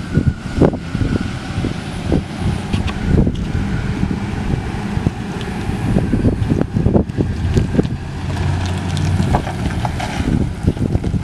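2005 Ford F-150 pickup driving slowly past, its engine running at low speed. Gusts of wind buffet the microphone throughout.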